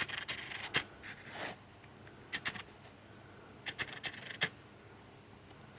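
Irregular clusters of light clicks and scratches, typical of a cat pawing and scrabbling at a fridge's plastic water dispenser.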